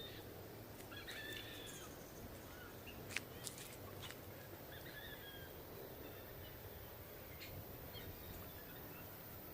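Faint bird calls and chirps over a steady outdoor background hum, with a few sharp clicks about three to four seconds in.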